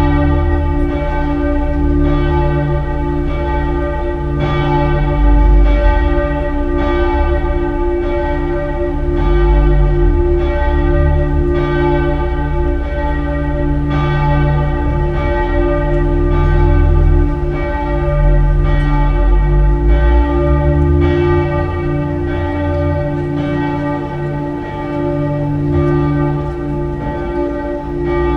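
The Frauenkirche Dresden's church bells ringing in a full, continuous peal, several bells swinging together so that their strikes overlap about once a second over a sustained hum of low tones.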